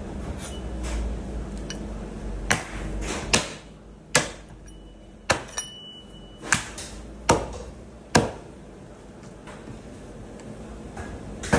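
A hatchet chopping through a sheep's head on a wooden butcher's block: about nine sharp, separate chops, most coming in a quick series roughly a second apart, then one more near the end.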